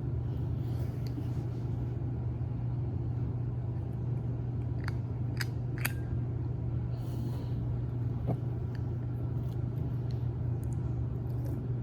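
Steady low hum, with a few faint clicks about five to six seconds in.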